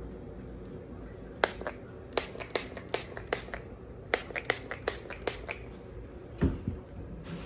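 Hard objects being handled: about a dozen sharp, irregular clicks over some four seconds, then a single dull thump near the end.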